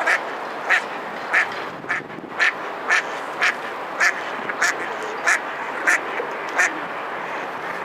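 A duck quacking in a steady, regular series of about a dozen short quacks, roughly one every 0.6 seconds, over a steady background hiss.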